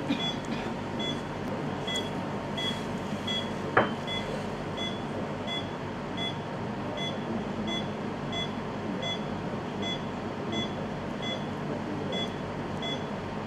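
Short electronic beeps at an even pace, about three every two seconds, over a steady hiss. About four seconds in comes a single sharp click.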